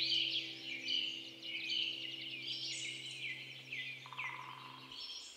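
A chorus of small birds chirping and twittering over a low steady hum. The hum stops near the end and the whole sound fades down.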